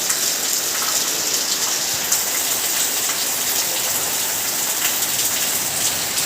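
Steady rain falling, a continuous hiss with many individual drops ticking and pattering on surfaces.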